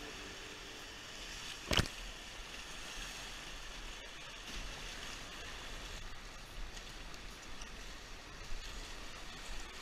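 Rushing whitewater of a river rapid heard from an inflatable kayak, a steady wash of water. A single sharp knock a little under two seconds in.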